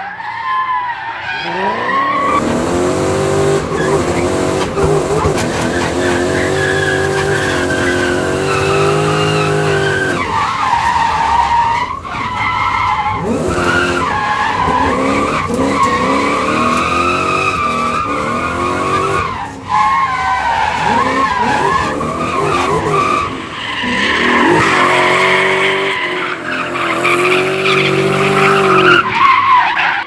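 V8-swapped BMW E28 drifting: the engine is held at high revs and rises and falls with the throttle, over the constant squeal of sliding tyres. Several times the revs drop off briefly and climb again.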